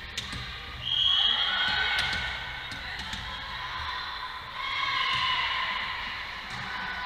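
A volleyball thudding on a hardwood gym floor and being struck, with players' and spectators' voices calling out and echoing in the gym twice, about a second in and again near the serve.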